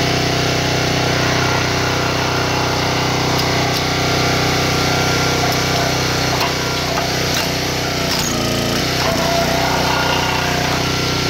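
A small engine running steadily as a wooden block presses into a heap of plastic toy cars. A few sharp cracks come through as the toys give way.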